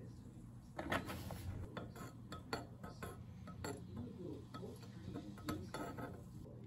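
A run of irregular light clicks and taps, with a short rustle about a second in, over a steady low hum.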